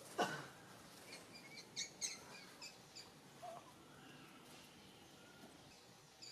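A sharp sudden call with a falling pitch right at the start, then a quick run of short, high-pitched animal chirps over the next two seconds, against faint outdoor background noise.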